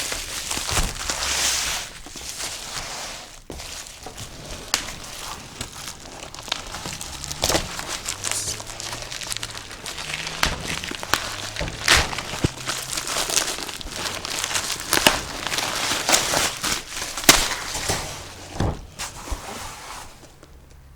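Packaging being handled and unpacked: crinkling and rustling of packing material, with a steady scatter of sharp clicks and small knocks.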